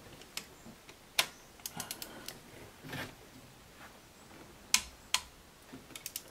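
Sharp metallic clicks and clinks of a torque wrench and socket on the injector clamp bolt of a Mercedes OM642 diesel as the bolt is run down to 60 inch-pounds, the first stage before a further angle turn. The clicks are scattered, with a quick run of small ratchet-like ticks about two seconds in and another near the end.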